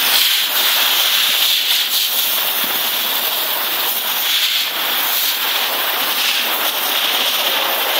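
Garden hose spraying water onto the ground in a steady hiss, washing the water along.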